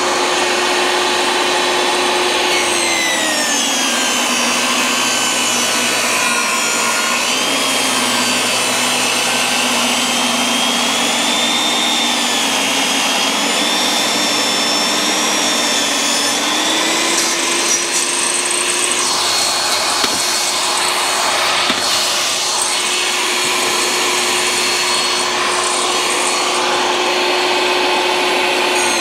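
DeWalt compact table saw running with a steady motor whine. About three seconds in, the pitch drops as the blade takes the load of a board being ripped lengthwise. Around sixteen seconds in, it rises back to free-running speed.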